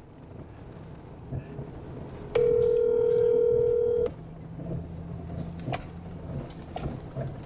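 Telephone ringback tone: one steady ring of about two seconds, starting a little over two seconds in, as an outgoing call waits to be answered. A low vehicle rumble runs underneath.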